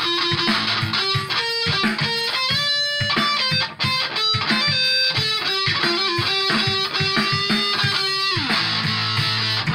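Background music led by guitar, playing quick runs of notes over a steady beat, with a downward slide in pitch about eight seconds in.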